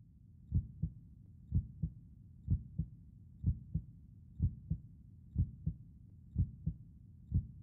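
A slow, steady heartbeat: paired lub-dub thumps about once a second, over a faint low rumble.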